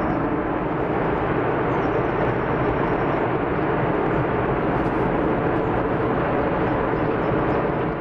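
Large rockslide coming down a mountainside: a steady, heavy rumble of rock and debris crashing and sliding.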